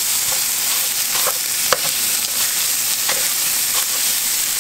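Blackened pompano fillets sizzling steadily in a frying pan, with several sharp clicks of metal tongs against the pan as the fish is broken into pieces.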